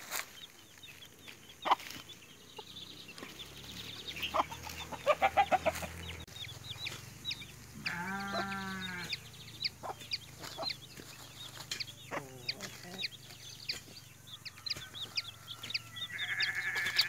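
Free-range chickens foraging: small chicks peeping in short high chirps throughout and hens clucking, with a quick run of clucks about five seconds in and one longer drawn-out call from an adult bird about eight seconds in.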